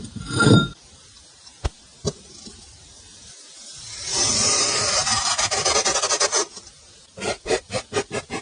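Slime being handled and played with: a loud squish about half a second in, two sharp clicks, then about two seconds of loud noisy rubbing of the slime. Near the end a fast, regular pulsing begins, about four beats a second.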